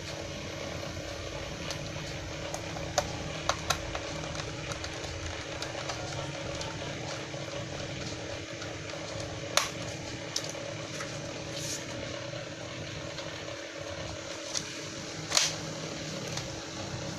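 Scattered light clicks and taps from a screwdriver and screws on a laptop's plastic bottom case, over a steady background hum.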